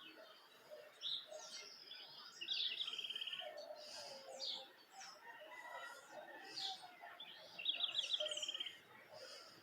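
Several birds singing and calling together, with short chirps throughout. The loudest is a fast trill that comes twice, about two and a half seconds in and again near eight seconds.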